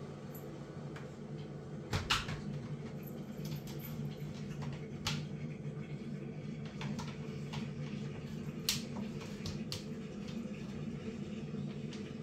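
A white plastic laundry basket knocked and clicked by a Siamese cat climbing into it and moving about inside. There are a handful of sharp knocks, the loudest about two seconds in, over a steady low hum.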